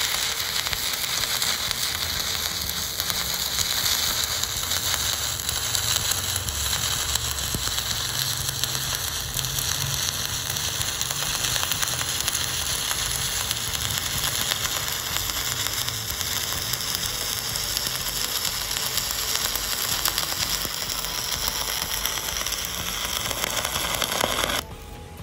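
Stick-welding arc from a 200 A Volt 2-in-1 inverter welder: a steady crackling sizzle as the coated electrode burns along the plate. It cuts off suddenly near the end when the arc is broken.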